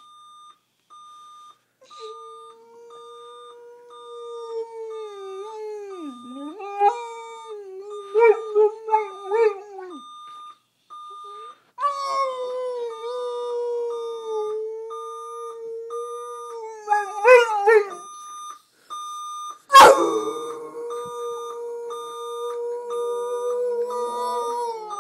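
A dog howling in long held notes, in three spells, breaking into short wavering yips between them, over an electronic alarm beeping steadily and rapidly. About twenty seconds in, a single sharp knock is the loudest sound.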